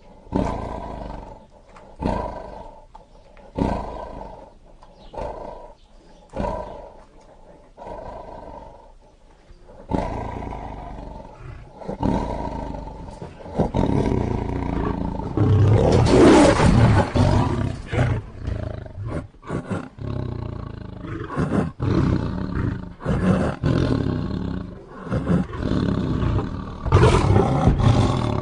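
Lion roaring: short grunting roars about every second and a half that die away, then from about ten seconds in a denser, louder stretch of roaring that peaks a little past halfway, followed by more short grunts.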